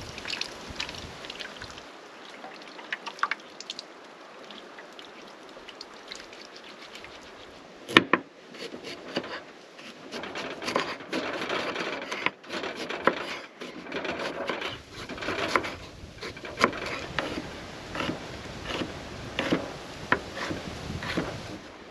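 Chef's knife cutting sweet potatoes on a wooden cutting board: irregular knocks of the blade onto the board and scraping as it slices, starting about eight seconds in.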